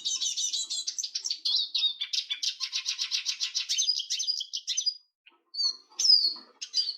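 A small songbird singing a fast, continuous twittering song for about five seconds, then, after a short pause, a few separate chirps and a downward-slurred call.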